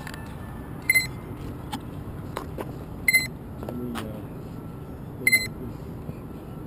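Short, high electronic double beeps from a tricopter, repeating about every two seconds over a steady low background hum.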